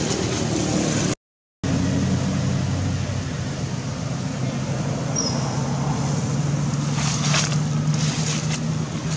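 Steady low motor-like hum under outdoor background noise. It cuts out completely for a moment about a second in, and a short high chirp comes about five seconds in.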